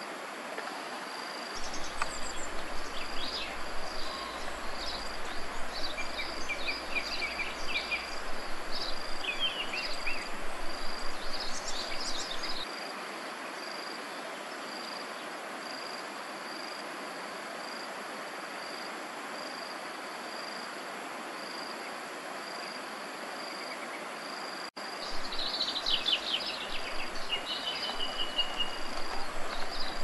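Outdoor ambience: a steady hiss with an insect's high note pulsing at an even rate, and short bird chirps and trills in the first dozen seconds and again near the end. A louder, rougher rumbling noise comes and goes with those stretches of chirping.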